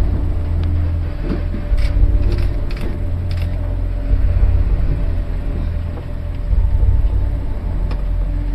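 Ship fittings creaking and knocking as the vessel rolls in heavy seas, over a steady low rumble and hum.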